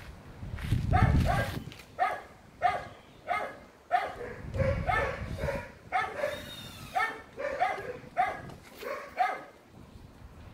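A dog barking over and over, short pitched barks about one to two a second, stopping shortly before the end. Bursts of low rumbling noise come about a second in and again around five seconds.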